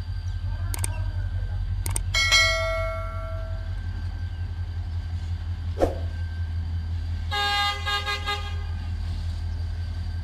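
Diesel locomotive horn sounding twice: a held blast of about a second and a half a little after two seconds in, then a longer multi-tone blast about seven seconds in. A steady low rumble runs underneath, and a few short clicks are heard.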